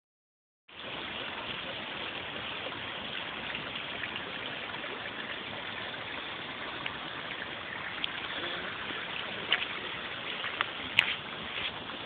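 Steady rushing of falling water from a waterfall over rocks, starting abruptly within the first second. A few sharp clicks come near the end.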